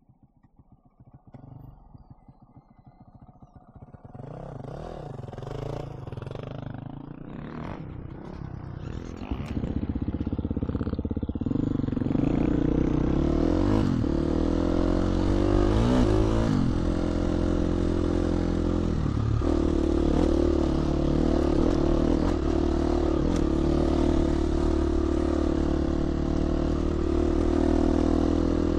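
GasGas 350 four-stroke single-cylinder dirt bike engine, faint at first and building over several seconds as the bike sets off, then running loud and steady under way on the trail, with a few rises and falls in pitch around the middle.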